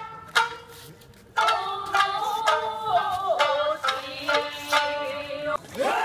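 Traditional Japanese dance music: plucked shamisen notes and sharp strikes with long, bending sung lines. Near the end it gives way to a crowd shouting.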